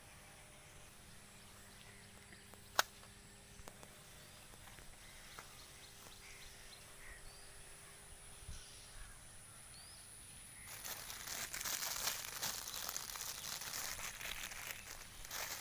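Quiet outdoor background with a few faint bird chirps and one sharp click about three seconds in. From about eleven seconds on, louder crinkling and rustling.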